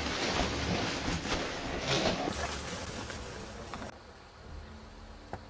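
Rustling and scuffling in tall grass, with a few soft knocks. About two seconds in, it gives way to a quieter outdoor hush that fades further toward the end.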